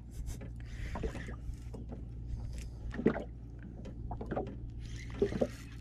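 Sea-side sound on a small wooden fishing boat: a steady low hum under water sloshing against the hull, with scattered light knocks.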